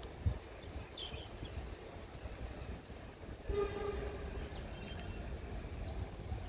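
A train horn sounds once about halfway through, starting abruptly and fading over about a second, over a low steady rumble. A few short bird chirps come early on.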